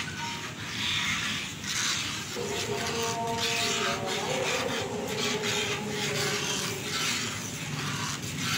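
A spatula scraping and rubbing round the bottom of a heavy pan in repeated strokes, stirring thin wheat-milk halwa batter as it starts to thicken and keeping it from sticking.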